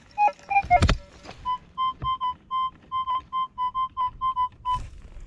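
Metal detector signalling a target: a run of short, even beeps on one high tone, about four a second, which the detectorist reads as a coin. Before the beeps come a few quick beeps of shifting pitch and a thump about a second in.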